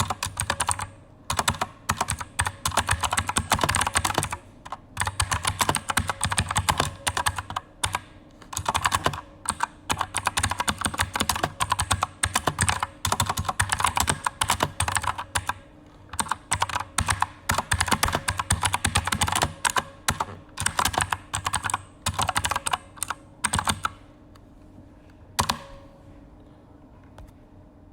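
Typing on an Aukey KM-G9 mechanical keyboard with Outemu Blue clicky switches: quick runs of sharp clicks with short pauses between them. The typing stops near the end, with one last single keystroke after it.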